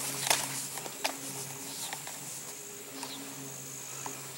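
Open-air ambience of insects trilling with a steady high-pitched tone, over a low hum that comes and goes, with a few faint clicks and a short falling chirp about three seconds in.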